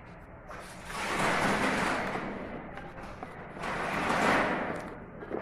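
Plastic packaging rustling and crinkling as a phone box and its contents are handled, in two long stretches: one about a second in, the other from about three and a half seconds.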